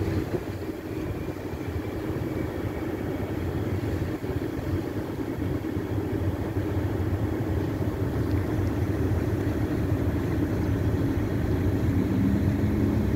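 Steady low diesel engine rumble from a tanker and its escort tug moving through the harbour, growing slightly louder.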